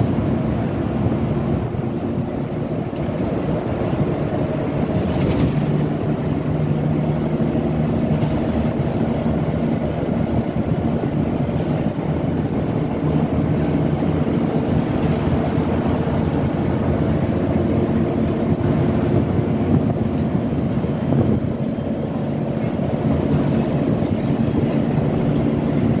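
Inside a Volvo B9TL Enviro400 double-decker bus under way: its straight-six diesel engine drones steadily, with road and body noise throughout.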